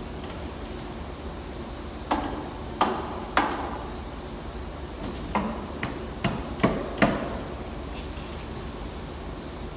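Hammer tapping on metal track-wheel parts: eight sharp knocks with short ringing, three close together and then, after a pause, five more.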